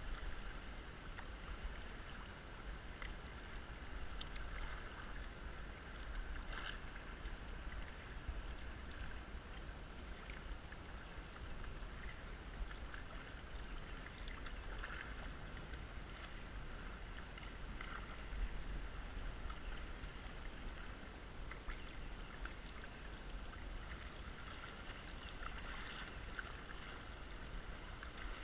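Kayak paddling on a flowing creek: a steady rush of moving water with scattered small splashes and drips from the paddle blades, over a low, steady rumble.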